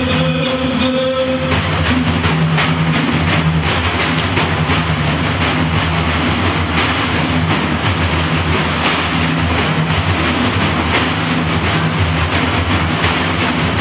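Ensemble of large frame drums (def/bendir) playing a fast, dense, driving rhythm of hand strokes, with no singing.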